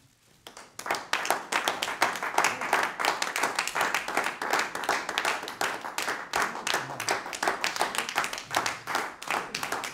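A small group of people clapping their hands, starting about a second in.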